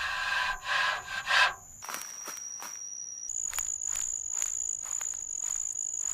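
Rustling, scraping noises for about the first second and a half, then a steady, high, thin insect trill with faint regular clicks.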